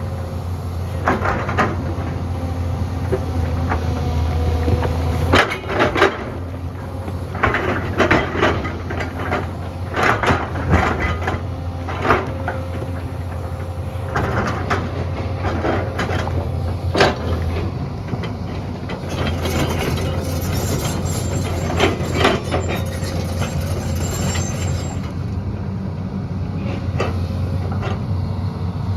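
Excavator's diesel engine running steadily, with many sharp knocks and clanks of the bucket working among stones.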